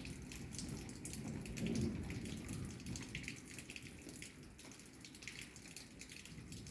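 Rain falling during a thunderstorm, with raindrops pattering and dripping onto hard surfaces as many small ticks. A low rumble swells and fades about two seconds in.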